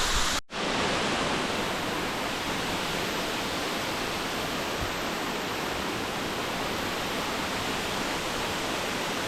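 Erskine Falls waterfall: the steady rush of falling water, with a brief dropout about half a second in.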